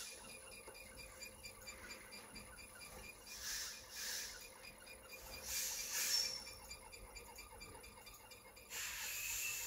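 Faint handling sounds: fingers pressing the buttons of an inverter keypad and tapping a touchscreen control panel, with a few short rustles.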